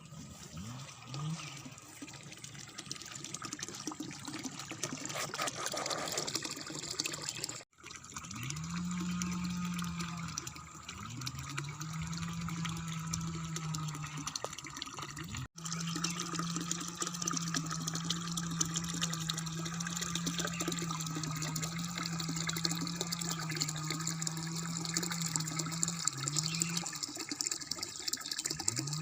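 Running water hissing steadily, with a low steady hum that comes in about eight seconds in, drops out briefly a few times and returns. There are two abrupt breaks in the sound.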